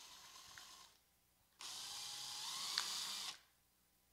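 Cordless drill running in short bursts as it bores a hole through the bottom of a plastic water bottle: a brief, quieter run that stops about a second in, then a longer, louder run that stops a little after three seconds.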